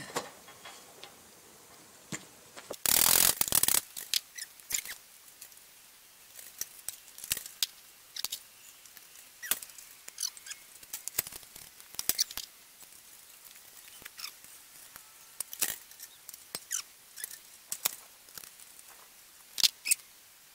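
Metal parts of an Allis-Chalmers hay rake being handled and fitted by hand, giving scattered clicks and knocks, with one louder noisy burst lasting about a second nearly three seconds in.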